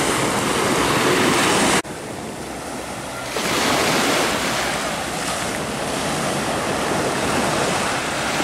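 Small waves breaking and washing up on a sandy shore, with wind on the microphone. The sound drops suddenly about two seconds in and comes back louder about a second and a half later.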